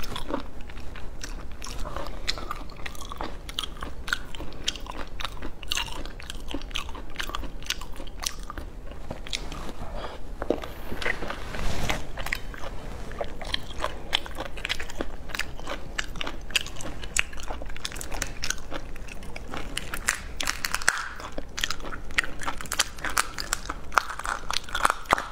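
Close-up crunching and crackling of a large raw marinated prawn's shell being cracked and pulled apart by hand, mixed with biting and chewing. Dense small cracks and clicks run through it.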